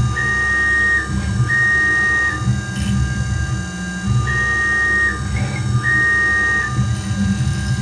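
Tormach 440 CNC mill running a cutting program: a steady mechanical whine with low rumble beneath, and a higher tone that switches on for about a second at a time, then drops out, as the machine moves back and forth through its passes.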